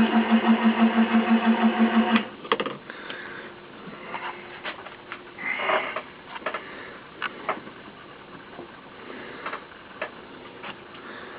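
Milling machine running a form cutter through a delrin gear blank, a loud pulsing hum that cuts off suddenly about two seconds in. Scattered light clicks and knocks follow.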